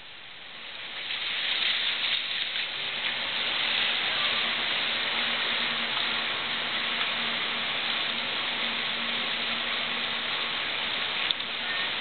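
Water rushing steadily along a log flume ride's channel, growing louder over the first second or two, then holding level.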